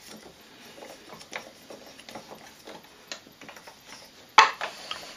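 Small, irregular wooden clicks and creaks from a large wooden socket tool turning a wooden bolt into a wooden toy steam engine. One louder wooden knock comes near the end.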